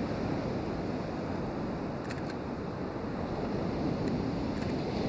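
Sea surf breaking and washing up a sandy beach, a steady rushing wash, with a couple of faint clicks about two seconds in.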